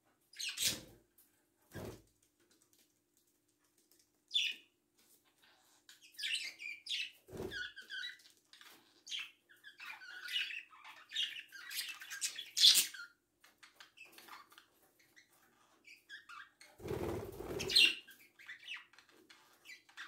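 Small pet parrots chirping and chattering in short, irregular high calls, with a few dull knocks and a brief rustling burst near the end.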